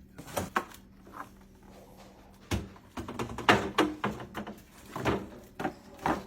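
Plastic storage bins and food packages being set into a refrigerator and moved on its shelves: a series of irregular knocks and clacks, about ten in all, over a faint steady hum.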